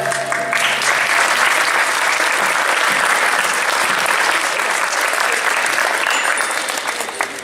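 Audience applauding as a song ends, the clapping thinning out near the end.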